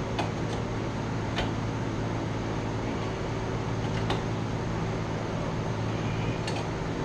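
A handful of light metallic clicks as a pipe bushing and gauge fittings are handled and threaded together, over a steady low machine hum.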